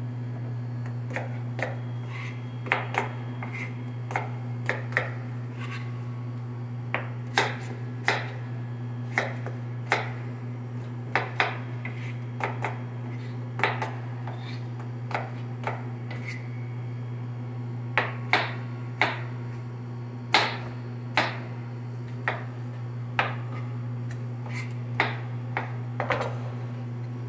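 Knife cutting firm fruit (pear and apple) on a plastic cutting board: irregular sharp knocks of the blade striking the board, roughly one a second and sometimes in quick pairs, over a steady low hum.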